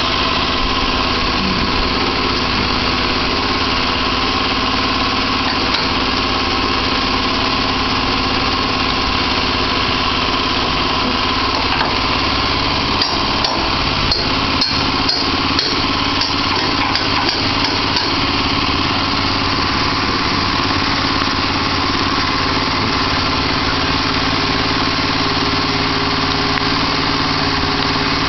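Small engine of a homemade band sawmill running steadily. A run of sharp clicks and knocks comes in about midway and dies away after several seconds.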